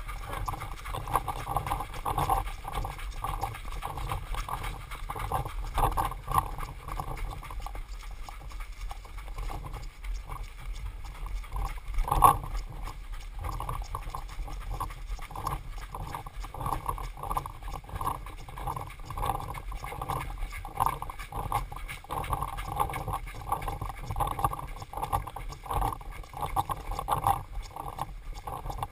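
Footsteps of a paintball player jogging over a woodland trail and grass, with the marker and gear jostling in a steady beat of thuds. One louder knock about twelve seconds in.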